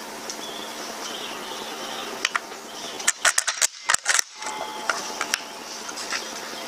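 Hatsan Blitz .22 full-auto PCP air rifle firing a short burst about three seconds in: a fast run of sharp cracks lasting just over a second, with a few single clicks just before it.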